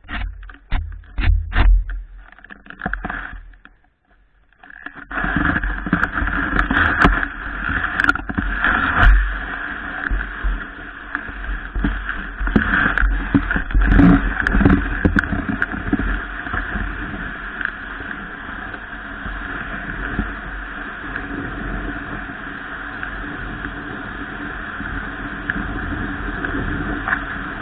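Steady rushing noise of a snowboard sliding over snow, with wind buffeting the camera microphone. It drops away briefly about four seconds in, then runs on steadily.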